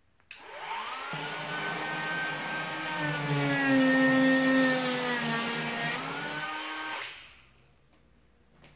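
Handheld rotary tool on a flexible shaft spinning up to a high whine, dropping somewhat in pitch and getting louder in the middle as its bit is worked along the cardboard box's lid seam, then rising again and winding down about seven seconds in.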